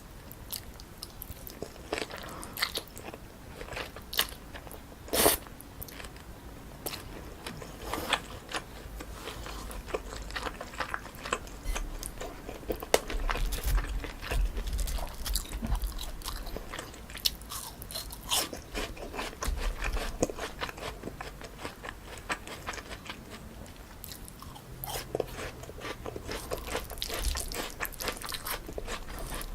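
Close-miked eating sounds: a person biting, chewing and crunching a bowl of jjolmyeon (spicy cold chewy noodles) with crisp cucumber and fruit, full of sharp irregular mouth clicks, with one louder click about five seconds in.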